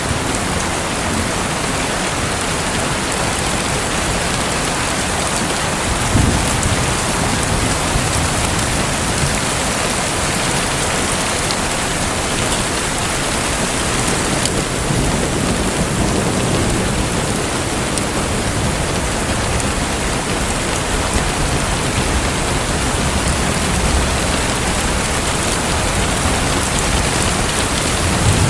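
Steady, even hiss of splashing, rain-like water, with a few soft low thuds.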